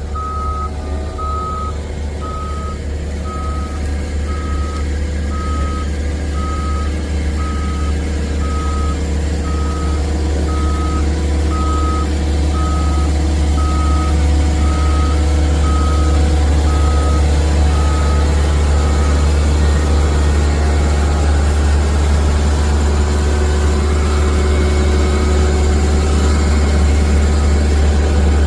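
A heavy vehicle's reversing alarm beeping steadily, about three beeps every two seconds, over its loud low engine running as it backs up onto a ramp. The beeping stops about two-thirds of the way through and comes back faintly near the end, while the engine grows louder.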